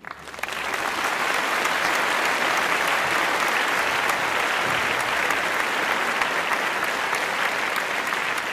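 Large audience applauding, swelling up over the first second and then holding steady.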